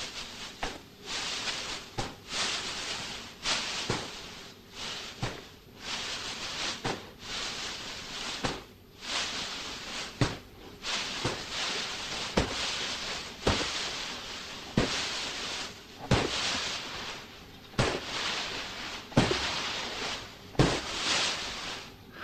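Shovels scooping steamed sorghum grain from a wooden vat and flinging it into the air: a sharp knock or scrape at each stroke, then a crackling hiss as the grain showers down, repeating about every one and a half seconds.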